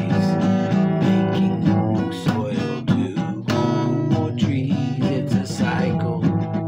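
Acoustic guitar played in a blues style, strummed chords and picked notes ringing on.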